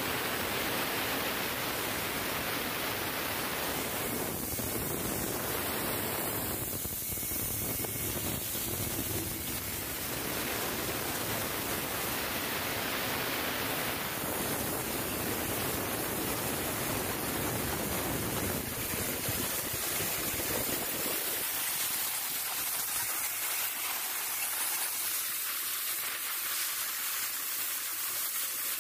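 Steady loud hiss and rush of onion-peeling machines running, with a low rumble underneath that drops away about three-quarters of the way through.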